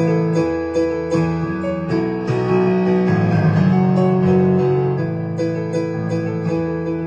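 Solo piano playing: held chords over a bass line that changes every couple of seconds, with a steady run of struck notes.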